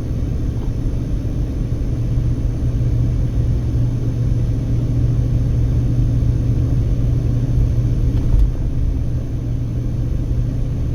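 A car driving along, heard from inside: a steady low drone of engine and tyre noise on the road. A small bump about eight seconds in.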